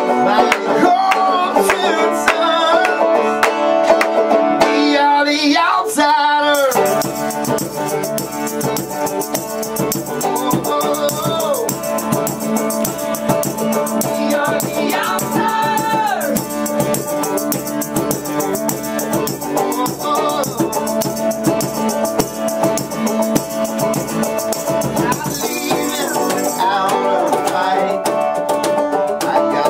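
Live acoustic band music: strummed acoustic guitar with a man singing, and a shaker rattling along from about six seconds in until a few seconds before the end.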